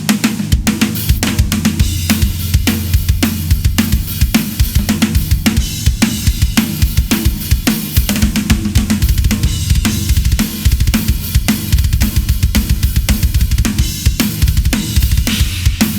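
Ludwig Raw Brass 14x6.5 snare drum, with an Evans Onyx batter head, Evans 300 snare-side head and Puresound snare wires, played in a steady drum-kit groove with bass drum and cymbals. A Snareweight M100 damper sits on the snare head to muffle its ring.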